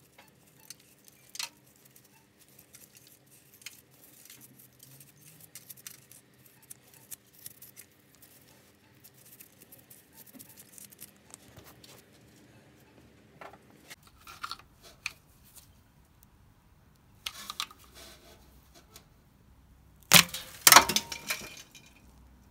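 Crusty, dried coolant deposits on an Austin 1300's A-series thermostat housing being picked and scraped away by gloved fingers, with small scattered clicks and crumbling scrapes. A louder burst of scraping and knocking comes near the end as the opening is cleared. The deposits are about 40 years of built-up coolant crust.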